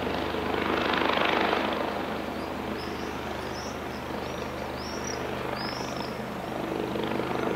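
Eurocopter EC135 helicopter flying overhead, a steady rotor and engine drone that swells briefly about a second in. A bird chirps several times in the middle, short and high-pitched.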